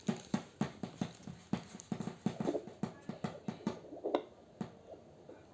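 Fetal doppler's loudspeaker putting out a quick, uneven run of dull thumps, about three a second, with a louder one about four seconds in.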